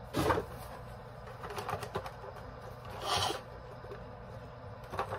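Rustling and handling of COVID test kit packets and their cardboard box, in a few short bursts: a louder one just after the start, another a little after three seconds, and a brief one near the end. A low steady hum of room ventilation runs underneath.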